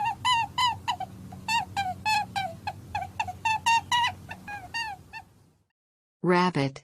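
Rabbit call: a rapid series of short high squeaks, each falling slightly in pitch, about four a second over a low steady hum, stopping about five seconds in.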